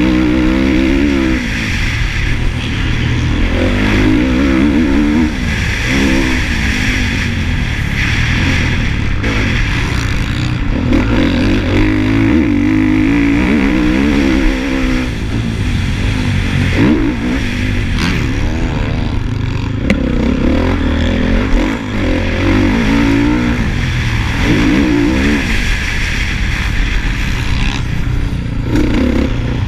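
Honda motocross bike engine heard close up from a mount on the bike, revving hard and easing off again and again, its pitch rising and falling every few seconds as the rider accelerates, shifts and brakes around a dirt race track, with a steady rush of wind noise underneath.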